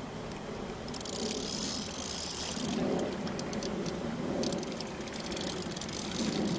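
Fishing reel being wound in while a carp is played: the reel's gears make a fast run of fine clicking, in spurts, with a stretch of hissing early on as line comes through.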